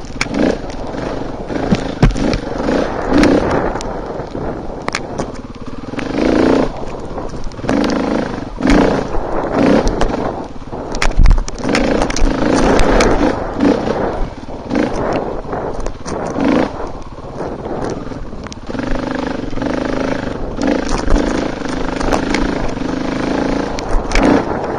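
Dirt bike engine revving up and down repeatedly as it is ridden hard along a rough trail, with frequent sharp knocks and clatter throughout.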